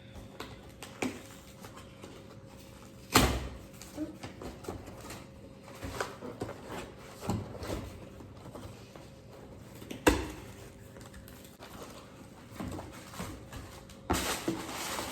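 A cardboard shipping box being handled and opened by hand: scattered taps and scrapes, two sharp knocks, about three and about ten seconds in, and a burst of rustling near the end.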